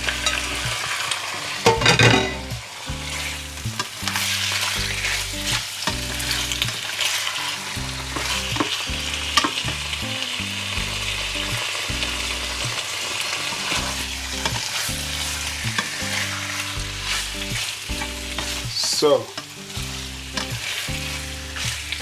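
Chicken sizzling as it fries in a pan with onions, carrots and garlic, stirred and scraped with a spoon. Louder clatter about two seconds in and again near the end.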